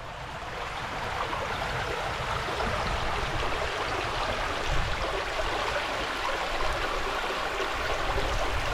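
River water rushing steadily over stones, swelling in over the first second.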